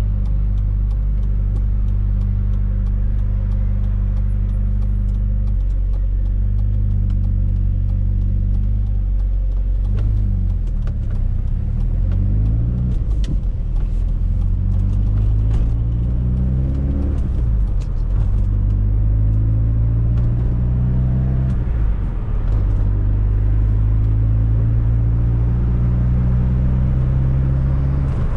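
Fiat Coupe 16V Turbo's turbocharged four-cylinder engine pulling on the road, its note climbing under acceleration and dropping back several times as gears change.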